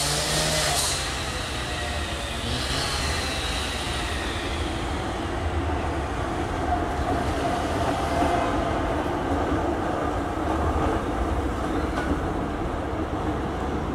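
Tram running past on its rails, a steady rumble of wheels and running gear with a faint whine in the middle.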